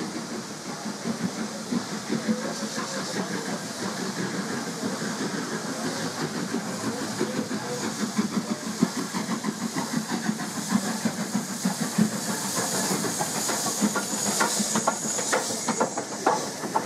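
LNER K4 2-6-0 steam locomotive no. 61994 The Great Marquess, a three-cylinder Gresley engine, working a train past with pulsing exhaust beats and hissing steam, growing louder as it approaches. Near the end, sharp clicks of wheels over the rail joints as the engine and coaches go by.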